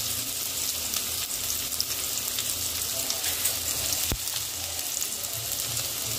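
Freshly chopped onion sizzling in hot oil in a kadhai, a steady crackling hiss: the onion frying for a tempering (phodni). A single sharp click about four seconds in.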